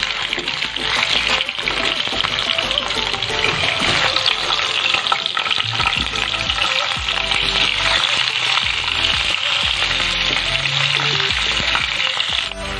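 Hot oil sizzling steadily in a frying pan as cauliflower florets fry in it. The sizzle drops off suddenly near the end.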